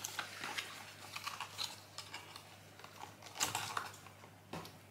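Light scattered taps and clicks of small cosmetics packaging being handled, with a sharper click about three and a half seconds in.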